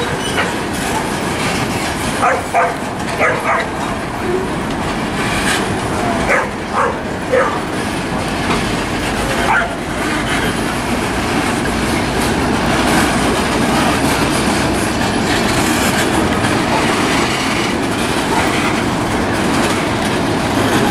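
Freight train of tank cars rolling slowly past, a steady rumble with wheels clattering over the rail joints. About ten short, sharp calls stand out over it in the first half.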